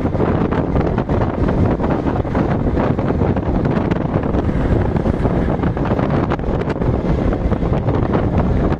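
Wind buffeting the microphone in a moving auto-rickshaw, over the steady road and engine noise of the ride.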